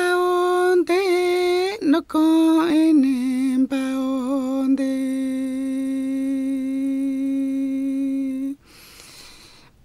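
A man's unaccompanied voice singing an icaro, an Amazonian shamanic healing song: a few short wavering phrases, then one long held note. The note breaks off near the end and is followed by a soft breathy rush.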